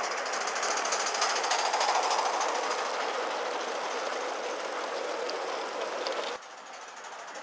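Gauge 1 live steam model of a Midland Railway Tilbury tank locomotive running with its train. Its steam exhaust beats come quickly over a steady hiss, loudest a second or two in, and drop away abruptly near the end.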